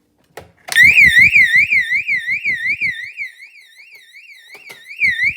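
Fire alarm sounding: a loud electronic warbling tone that sweeps up and down about four times a second. It starts just under a second in, right after a click.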